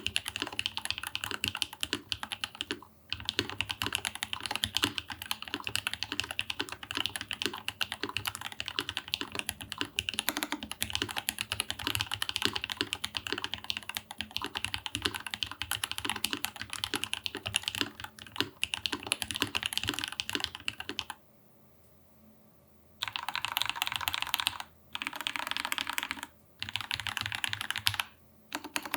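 Typing on a custom Rama U80-A SEQ2 mechanical keyboard fitted with lubed and filmed Alpaca linear switches, a brass plate and lubed Durock screw-in stabilizers: fast continuous keystrokes, then a pause of about two seconds, then short bursts of typing.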